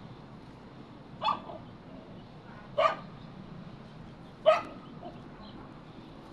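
Three short, sharp animal calls about a second and a half apart, the last one the loudest.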